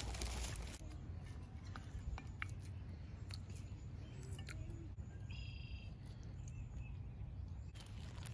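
A plastic produce bag crinkling as lettuce is pulled out of it, stopping about a second in; then small clicks of eating and a spoon against a plate, with a short bird call about five seconds in, over a low steady rumble.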